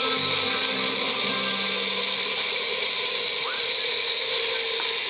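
Small electric blender running steadily, whipping herbs into melted garlic butter.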